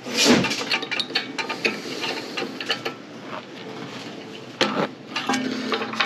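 Small metal clicks and clinks of a carburetor's throttle shaft and lever being worked into the carburetor body by hand, with one louder knock near the start.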